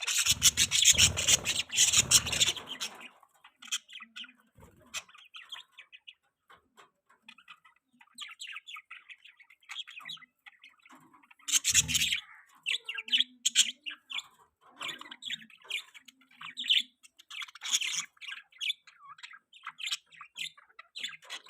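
Budgerigars chirping and chattering in quick runs of short high chirps throughout. The busiest, loudest bursts come in the first three seconds and again about twelve seconds in, each with a low rumble underneath.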